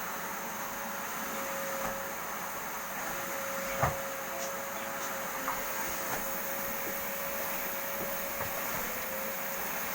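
Vacuum cleaner running steadily, a constant motor hum and airflow hiss with one sharp knock about four seconds in and a few faint clicks.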